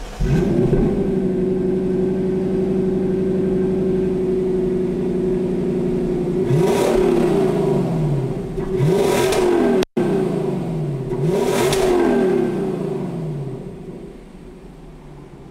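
Lexus LC500's 5.0-litre naturally aspirated V8 starting up, then idling through its quad exhaust. About six seconds in it is revved three times, each rev rising and falling back, and it settles back to a quieter idle near the end.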